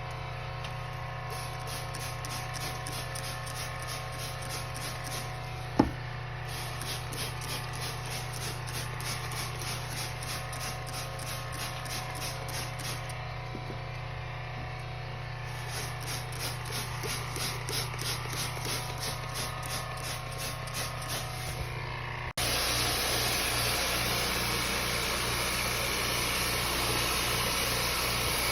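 A motor-driven machine running with a steady low hum and a fast, even pulsing, with one sharp click about six seconds in. After an abrupt cut near the end, a louder steady rushing noise takes over.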